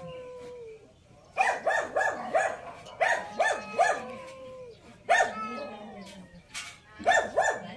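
A dog barking in quick bursts of three to five barks, about four a second, starting a little over a second in and coming back several times. At the very start a long falling yowl fits the two cats squaring off nose to nose.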